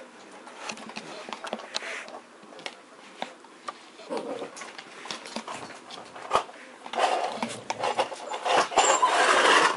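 Dogs moving about right at the microphone: scattered light knocks and clicks, then from about seven seconds in a loud, rough rubbing and rustling close against the camera.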